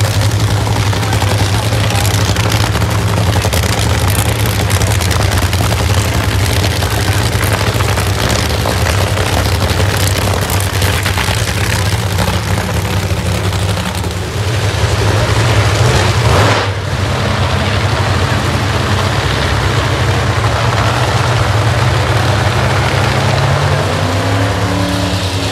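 Funny car's V8 drag-racing engine running at a steady, loud idle on the start line during its warm-up. It swells briefly past the halfway point and rises in pitch near the end.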